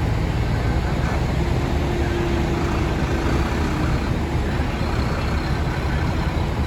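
Bulldozer's diesel engine running steadily, a continuous low rumble.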